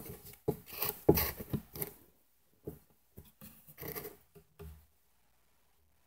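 Irregular close scratching and rubbing, loudest in the first two seconds, then fainter scrapes that stop about five seconds in.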